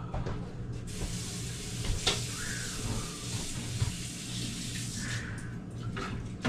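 Water running from a kitchen tap: a steady hiss that starts about a second in and stops shortly before the end. A sharp clink sounds about two seconds in.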